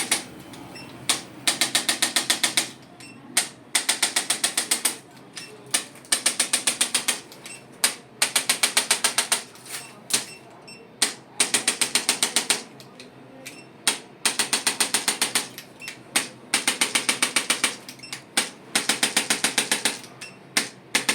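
Rapid bursts of sharp mechanical clicks, about a dozen a second. Each burst lasts one to two seconds, and about eight bursts come roughly every two seconds, with single clicks in between.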